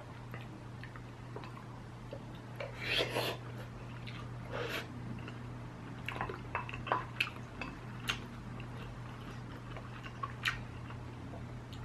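Eating sounds from a pot of Korean army base stew (budae jjigae): chopsticks picking up the food, a few short wet slurps and clicks, and chewing, over a low steady hum.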